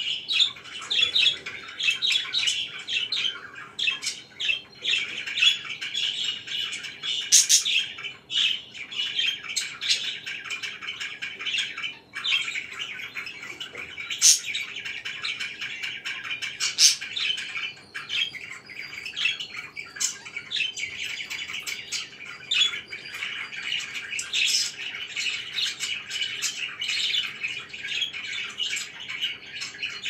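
Pet budgerigars chattering and chirping without a break, a dense warbling chatter broken now and then by louder, sharp squawks.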